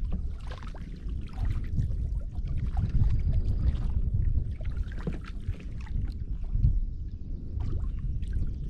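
Canoe being paddled on a lake: scattered paddle strokes and splashes over a steady low rumble.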